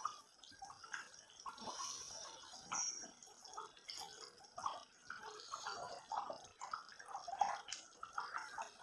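Thick chicken curry simmering in a steel pot, its surface bubbling and popping in small, irregular blips.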